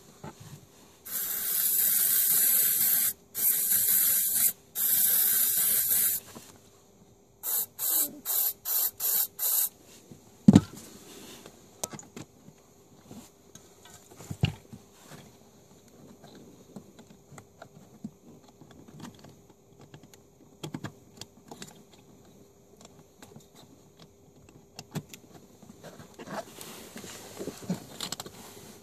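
Aerosol anti-moisture spray hissing from a can in three long bursts, then six short ones, sprayed into the seat airbag connector of a Renault Mégane 2 to cure an airbag fault. A sharp knock follows about ten seconds in, then scattered faint clicks.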